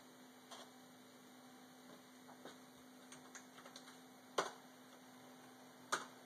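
Faint steady electrical hum, with a few soft computer-keyboard keystrokes typing a short command, then two sharper clicks about a second and a half apart.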